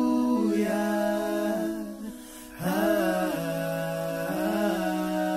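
Background music: wordless voices humming long, held notes a cappella, with a brief dip about two seconds in.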